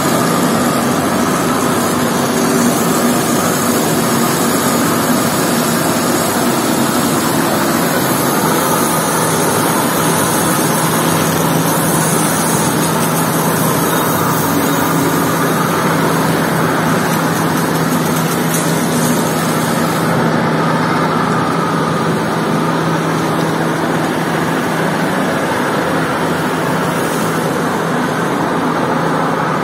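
Steady rush of a strong hose jet spraying water onto a soaked, foamy wool rug, over a steady motor hum.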